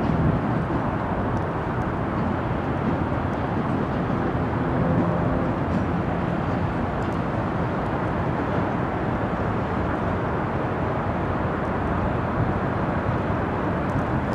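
KLW NZE15B genset diesel switcher locomotive running as it rolls slowly toward the listener, a steady engine sound with no sudden events.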